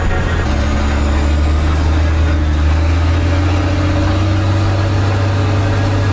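Straight-piped International DT466 diesel engine of a Bluebird school bus running with a steady low drone, with a faint high whine rising slowly in pitch.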